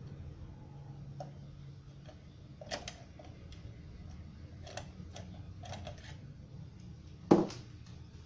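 Irregular light clicks and taps, with one sharp, much louder knock about seven seconds in, over a low steady hum.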